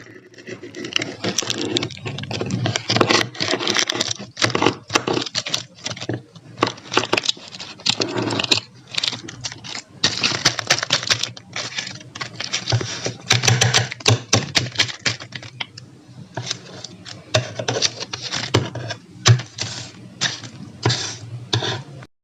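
A dense run of quick, irregular clicks and taps, with a few louder ones here and there.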